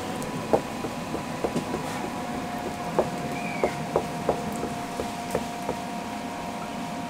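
Cleaver blade knocking down on a floured wooden board as rolled dough is cut into strips for youtiao (Chinese fried dough sticks): about a dozen sharp, irregularly spaced knocks. A steady high hum runs underneath.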